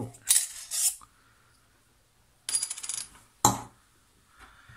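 Small steel parts of a cut-open Fleetguard LF3615 oil filter clattering on a wooden table. Two short scraping clinks come about half a second in. Around two and a half seconds in, a little metal plate (the spring's reinforcement plate) drops out and rattles and rings like a dropped coin. One sharp clink follows a moment later.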